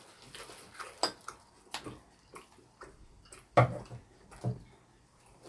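Quiet eating sounds: scattered light clicks and taps of utensils against dishes. The loudest is about three and a half seconds in, with a smaller one about a second later.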